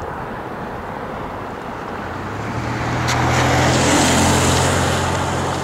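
CN diesel locomotive 5258 approaching, its engine drone growing louder from about two seconds in.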